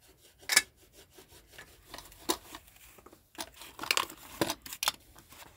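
Rubbing and scraping of plastic toys being handled, in short irregular strokes, the sharpest about half a second in and a cluster around four seconds in.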